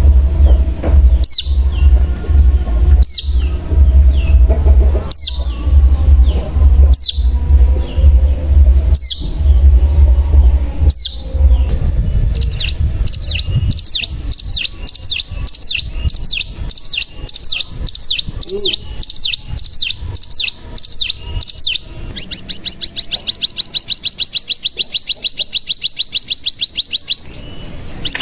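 Ciblek gunung (a mountain prinia) calling and singing: sharp, high calls that sweep downward, repeated about every two seconds over a low hum, then a quick run of high chirps, then a long, very rapid high trill, the 'bren' trill, breaking off briefly near the end.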